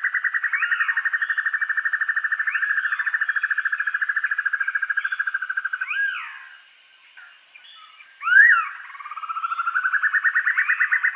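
Broadbill song: a long rapid trill of about ten notes a second that fades out about halfway through. A few short, sharp up-and-down whistled calls follow, then the trill builds back up, rising in pitch, near the end.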